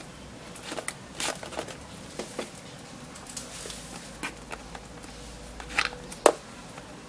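Hands handling a plastic rear-view mirror monitor and its cables: scattered small clicks and rubbing. There is one sharper click about six seconds in.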